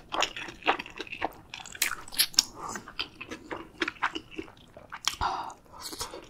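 Close-miked mouth sounds of chewing a mouthful of soft mandu dumpling from spicy ramyun: many quick wet smacks and clicks, with one louder mouth sound about five seconds in.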